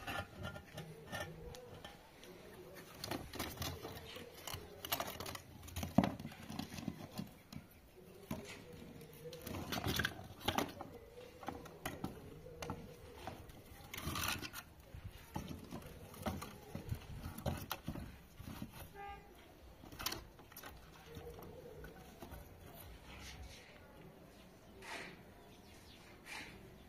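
Irregular knocks and clatters of dry firewood sticks and hollow concrete blocks being set down and shifted on a concrete floor, to build a base for a cooking fire.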